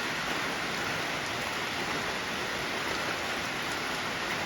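Steady rain falling, an even hiss of rain that doesn't let up.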